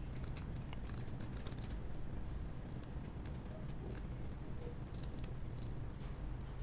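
Scattered small clicks and taps of a replacement battery being handled and fitted into an Oppo A31 smartphone, over a steady low background hum.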